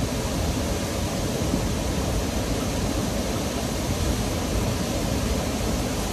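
Steady rushing noise with a low, restless rumble, from wind over the microphone and moving river water below a dam.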